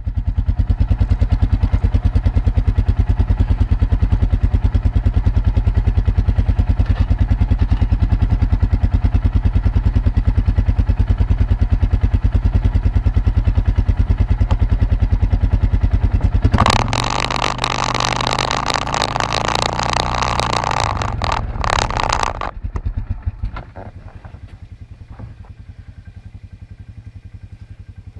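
Off-road vehicle engine idling with a fast, even pulse, then a louder, noisier stretch of about five seconds, after which the sound drops much quieter.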